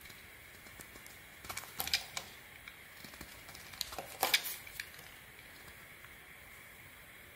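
A utility-knife blade carving a hard bar of Eubos soap, chips cracking and flaking off in crisp clicks and crackles. The clicks come in two clusters, one about a second and a half in and a louder one about four seconds in.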